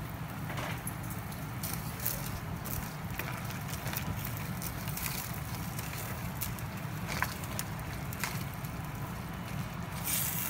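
Crab and miswa noodle soup boiling in a stainless steel pan on a gas stove: a steady low rumble with scattered pops and clicks. A wooden spoon stirs through the pot in the second half.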